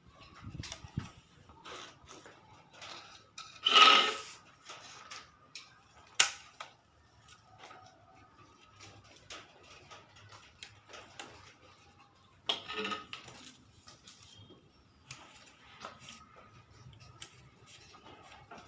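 Thin cage bars clicking and rattling as they are pushed through the drilled holes of a wooden bird-cage frame, with scattered light taps. A louder scraping rustle comes about four seconds in and again around twelve and a half seconds.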